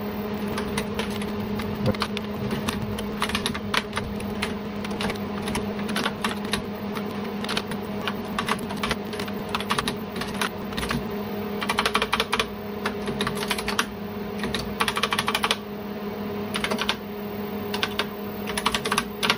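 Typing on the full-travel keyboard of a 1976 Wang 2200F minicomputer, sped up into a dense, rapid run of key clicks over a steady low hum.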